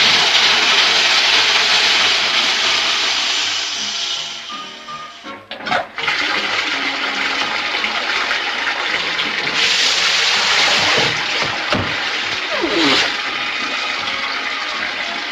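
Water rushing loudly through bathroom plumbing, like a toilet flushing, with a brief break about five seconds in before it rushes on; background music plays underneath.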